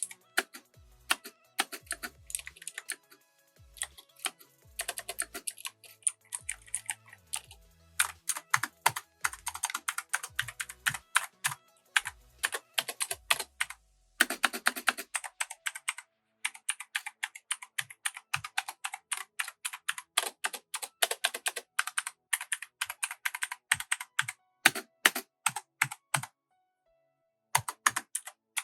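Typing on a mechanical keyboard fitted with Razer PBT keycaps: runs of rapid, sharp keystroke clacks with short pauses, stopping briefly near the end before a few last keystrokes. Background music plays under the first half.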